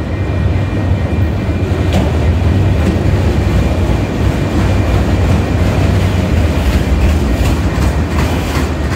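Autorack freight cars rolling past at close range: a steady low rumble of steel wheels on the rails, with occasional sharp clicks and clanks.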